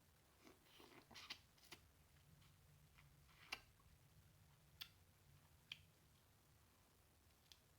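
Faint eating sounds from close by: scattered short clicks and smacks of mouth and food at irregular moments, a small cluster about a second in and the sharpest a little past three and a half seconds in.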